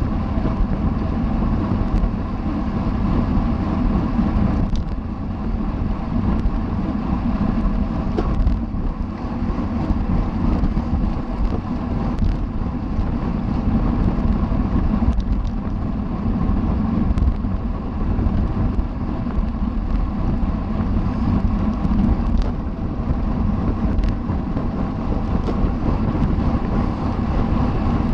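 Steady rush of wind over a camera microphone riding on a bicycle at race speed, with a steady hum from the tyres and drivetrain underneath.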